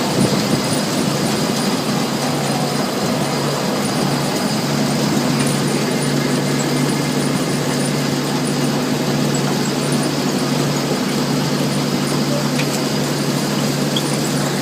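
Tractor and potato harvester running steadily while lifting: a constant engine hum under the harvester's working noise of webs, rollers and belts sieving soil from the potatoes.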